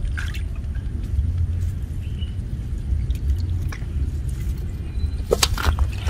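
Steady low rumble with a few short, sharp wet splashes in muddy water about five seconds in.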